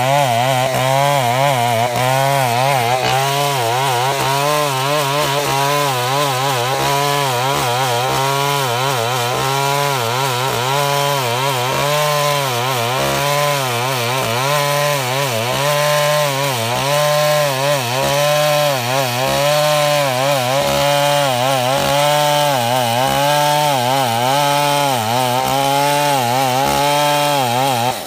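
Stihl 070 two-stroke chainsaw running at high revs while cutting through timber, its pitch wavering up and down in a steady rhythm as the chain works in the wood. The sound cuts off abruptly at the very end.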